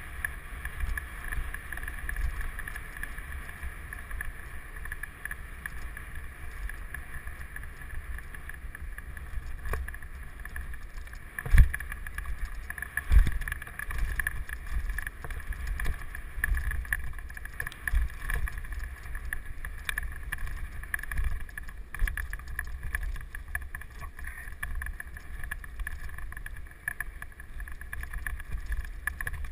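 Mountain bike running fast over a dirt forest trail: wind buffets the microphone over the steady rattle of the bike and its tyres on the dirt. Two hard knocks from bumps come a little before the middle, about a second and a half apart.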